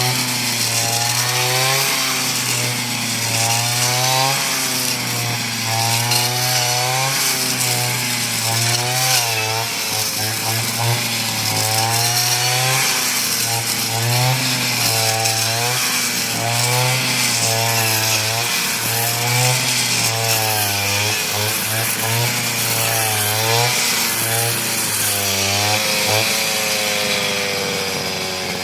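Small engine-driven cutter running while cutting rice stalks, its pitch rising and falling over and over as the load changes.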